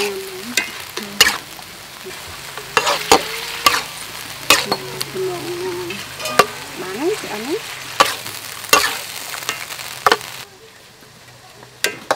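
A metal spatula stirring and scraping beef cubes in a metal wok, with sharp clanks against the pan at irregular intervals over a steady sizzle of frying. The sizzle and clanks drop away near the end.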